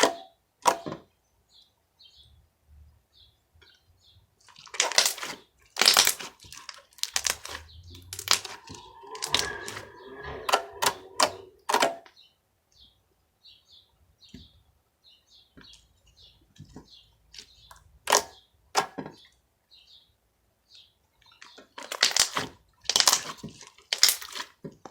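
Homemade slime being handled, giving off bursts of sharp clicking and crackling pops as it is pressed and stretched, in several clusters with quiet gaps between.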